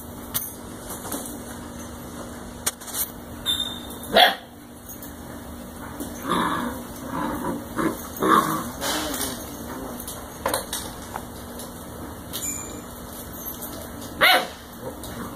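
Seven-week-old puppies giving scattered short yips and whimpers, most of them in a run through the middle. Two sharper, louder sounds come about four seconds in and near the end.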